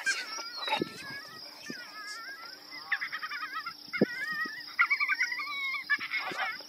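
Warbling animal calls repeating in short wavering phrases over a steady high-pitched buzz, with two sharp knocks, one about a second in and one about four seconds in.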